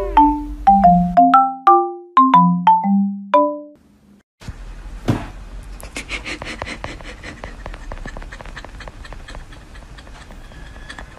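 A short marimba-like tune of struck mallet notes that fades out after about four seconds. After a brief silence comes a noisy stretch full of rapid clicks and taps, with one sharp knock near its start.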